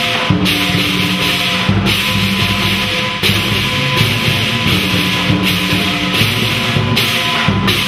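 Lion dance drum and hand cymbals playing loudly: a dense clashing cymbal wash over the drum, broken off sharply every second or so in a driving rhythm.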